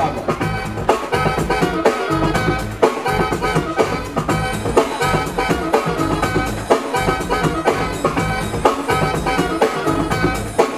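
Breakbeat music from the DJ's set, with a steady drum beat, a bass line and jazzy instrumental layers, played loud for a breakdancer's round.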